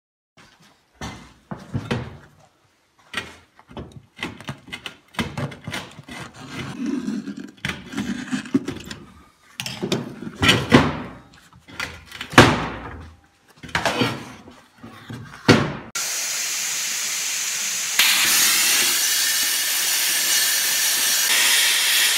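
An old tyre being worked off a steel car wheel rim: a string of uneven knocks, thumps and rubber scrapes. About two-thirds of the way through, a plasma cutter starts cutting the steel rim with a steady loud hiss, which grows louder a couple of seconds later.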